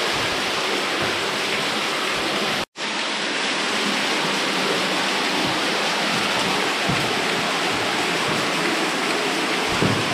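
Water falling and splashing down the walls of a cave shaft: a steady, loud rush, broken by a momentary dropout just under three seconds in.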